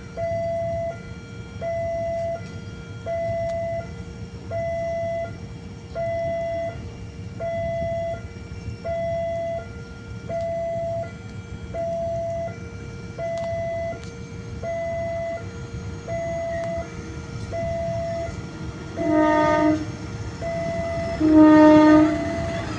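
Level-crossing warning alarm sounding a two-tone signal, alternating high and low about once a second, which tells that a train is coming. Near the end a locomotive horn sounds two blasts, the second louder.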